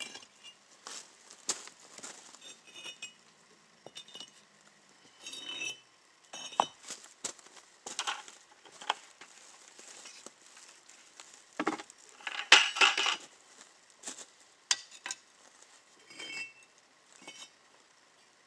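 Irregular clinks, scrapes and knocks of bricklaying: mortar being worked in a plastic bucket and firebricks being handled and set, some hits ringing briefly. The loudest clatter comes about two-thirds of the way through.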